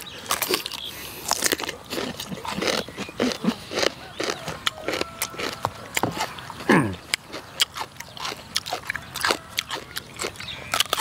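Close, crisp crunching and chewing of raw cucumber being bitten and eaten, in many irregular sharp crunches. About seven seconds in, a short falling vocal exclamation.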